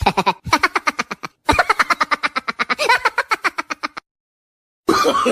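A laughing sound effect: a rapid staccato laugh, about eight pulses a second, in three runs broken by two brief pauses, stopping about four seconds in. Near the end a different laugh or voice starts.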